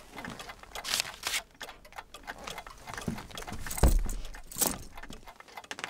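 Scuffling, rustling and light knocks as a large box is shoved and handled, with one heavy thump about four seconds in.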